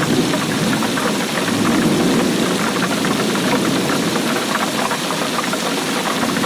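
Steady rainfall: a dense patter of countless drops over a low, even rushing.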